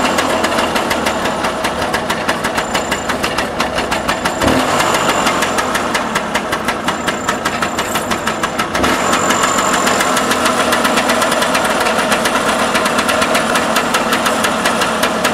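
Classic scooter's small two-stroke engine running with a rapid, even firing beat and the revs lifting a little about nine seconds in, with the owner listening for why it keeps cutting out.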